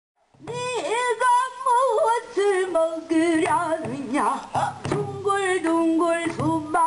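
A female pansori singer's voice starting about half a second in, with long held notes in a wide, wavering vibrato, accompanied by sharp strokes on the buk barrel drum.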